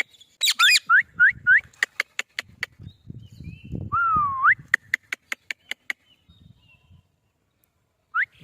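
Parrot whistling: a quick series of four short rising whistles, then one longer whistle that dips and swoops up, and another short rising whistle near the end. A steady ticking, about four ticks a second, runs under the whistles and stops partway through.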